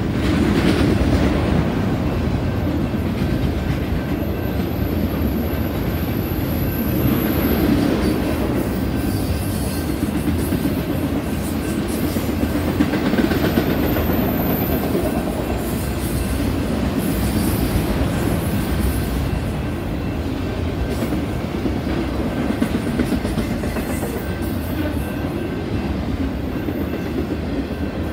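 Freight train of autorack cars rolling past steadily: a continuous rumble of wheels on rail with clickety-clack over the joints. A thin high-pitched wheel squeal comes in twice.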